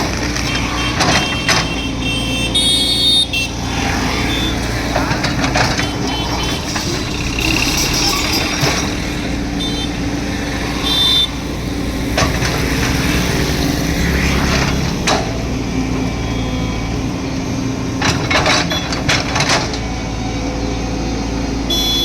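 Heavy diesel earthmoving machine running under load, a steady low engine drone with scattered knocks and a few short high squeals.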